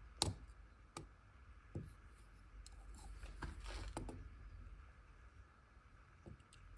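Small metal tools handled on a bench while a digital caliper is re-zeroed: a few faint, scattered clicks and light knocks, with a soft scraping slide around three to four seconds in.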